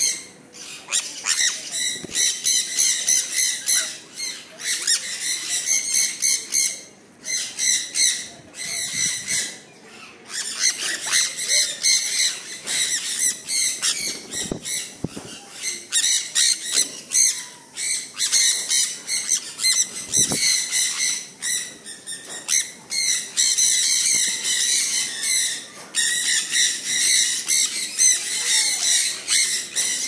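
A flock of sun conures calling: many shrill, high-pitched calls overlapping almost without pause, broken by a few short lulls.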